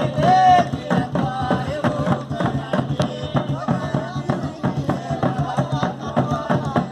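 Batuque folk music: fast, dense percussion strokes with voices singing over them.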